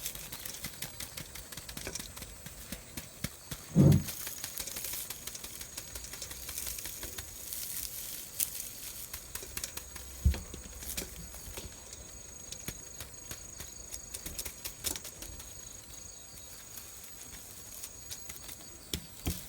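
Dried luffa gourd being squeezed and kneaded to loosen its seeds: dry crackling and rustling with many small clicks as seeds rattle out. Two dull thumps, about 4 and 10 seconds in.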